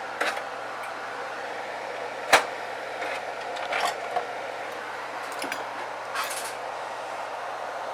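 Tools and a small circuit board handled on a workbench: a few light clicks and taps over a steady hiss, with one sharp click about two seconds in.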